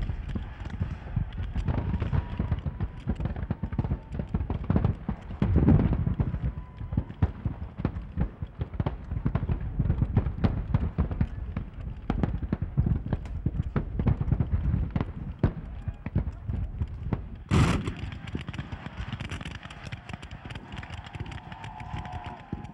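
Massed black-powder rifle-musket fire at a Civil War battle reenactment: a continuous crackle of many overlapping shots. There is a heavier boom about six seconds in and a single sharp, loud report later on.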